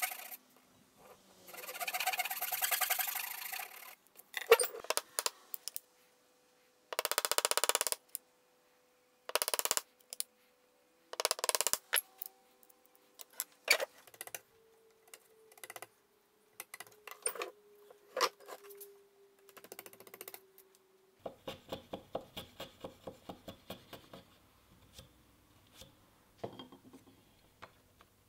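Hand-sawing a small wooden block with a Japanese-style handsaw, a couple of seconds of quick strokes, followed by scattered scrapes, taps and sharp clicks of chisel paring and wood being handled on a bench, with a quick run of even ticks about two-thirds of the way in.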